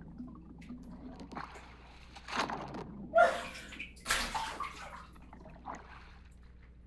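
Pool water splashing and sloshing in several separate bursts as a plush toy is pushed through it, the loudest about three seconds in.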